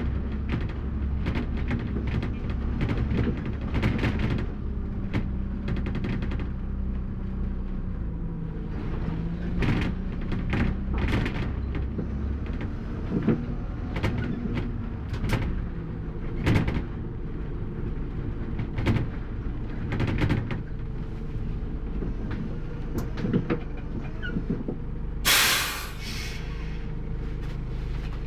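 A bus's diesel engine running steadily while driving, with frequent sharp knocks and rattles. Near the end there is one loud hiss of air, lasting about a second.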